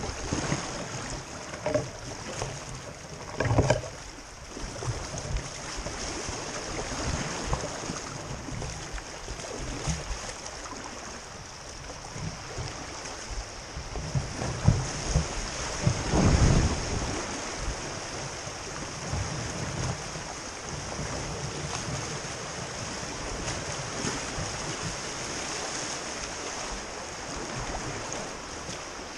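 Steady rush of creek rapids around an open canoe, with the splash of paddle strokes in the water and a few louder low bursts.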